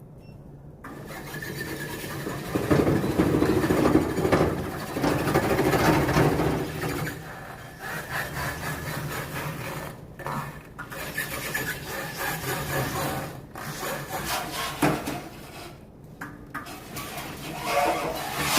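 A small agricultural transport vehicle running, its engine hum mixed with a rasping, scraping mechanical noise that rises and falls in level.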